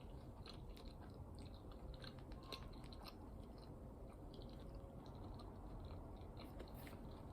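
Faint sounds of someone eating: quiet chewing with small scattered clicks, over a low steady room hum.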